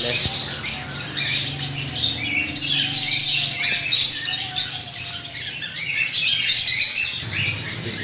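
Many caged small parrots chirping and squawking together, a dense, continuous chatter of short high calls. A low steady hum runs under it for the first few seconds.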